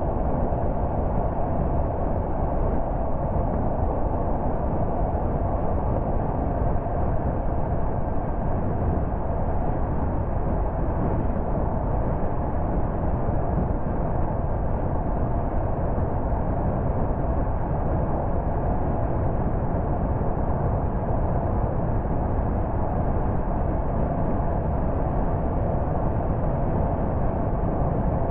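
Steady road noise of a car driving along: a constant rumble of tyres and engine that neither rises nor falls.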